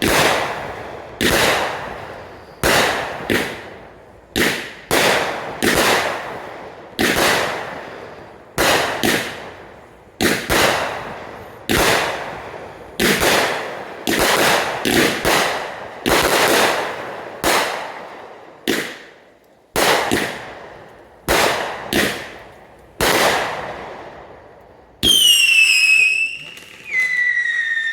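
Backyard consumer fireworks going off: a long run of sharp bangs, about one a second, each trailing off in an echo. Near the end, two high whistles that fall in pitch.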